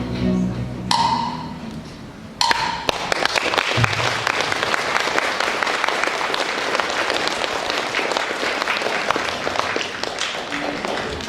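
A musical number ends on a couple of ringing percussion strikes. About two and a half seconds in, an audience breaks into applause that runs on, easing slightly near the end.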